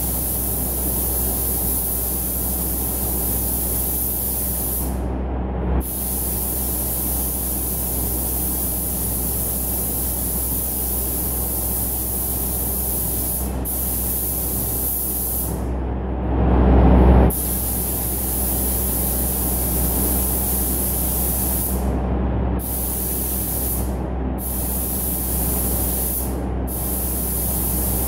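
Compressed-air paint spray gun hissing, cutting off briefly several times as the trigger is let go, over the steady hum of a spray booth's extraction fans. About sixteen seconds in, a louder rush of noise lasts about a second.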